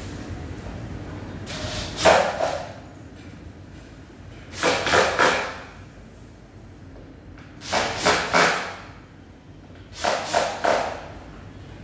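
Cordless drill running in four short bursts of about a second each, driving fasteners into the particleboard panels of a flat-pack IKEA Billy cabinet.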